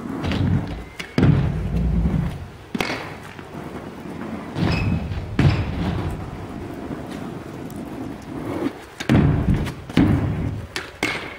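Stunt scooter wheels rolling on a concrete skatepark, with several sudden thuds and clacks from landings and deck hits on the ramps. Low wind rumble on the microphone underneath.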